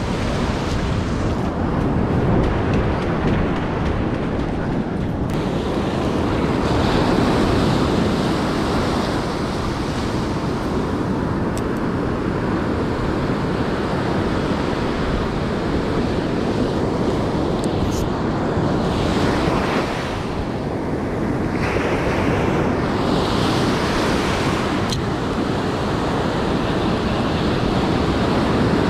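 Surf breaking and washing up a sandy beach close by, with wind buffeting the microphone.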